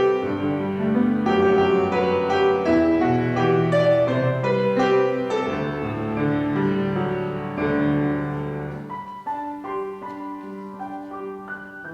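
Piano playing a slow piece with full chords and deep bass notes, thinning to a quieter, higher passage about nine seconds in.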